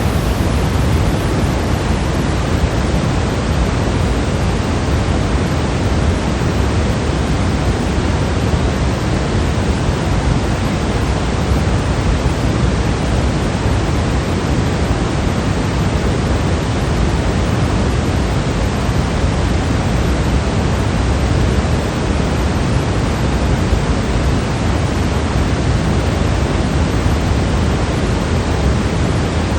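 Steady electronically generated white noise of the sleep-machine kind: an even, unbroken hiss with a fuller rush in the low end.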